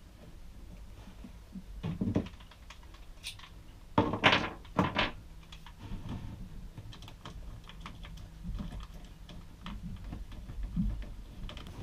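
Scattered clicks and knocks of hand work on an engine: a clear plastic hose being worked onto the raw-water pump fitting and its hose clamp tightened with a screwdriver. The louder knocks come about 2 seconds in and again around 4 to 5 seconds in.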